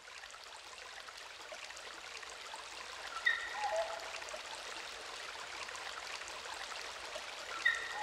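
Intro of an early-'90s electronic dance track: a steady rushing, water-like noise swells slowly from silence. Over it come a few short high blips stepping down in pitch, about three seconds in and again near the end.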